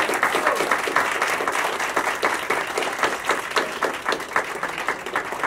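Audience applause: many people clapping hands together in a dense run of claps that thins out near the end.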